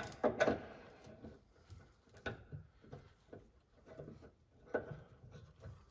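Scattered light clicks and taps of a hand wrench and metal parts being worked on a car's steering tie rod end, at irregular intervals.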